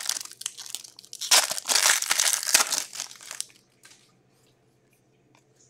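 Foil wrapper of an Upper Deck Ice hockey card pack being torn open and crinkled by hand, a dense crackling that stops about three and a half seconds in.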